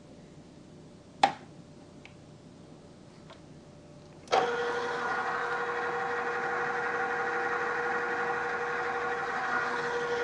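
A sharp click about a second in. About four seconds in, a drill press motor switches on and runs steadily with a constant whine, its spindle turning a deburring tool that is not yet cutting.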